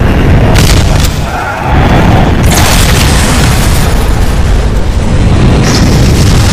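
Heavy booming blast and explosion sound effects over a deep continuous rumble, with sharp hits about half a second in, at one second, at about two and a half seconds and near the end.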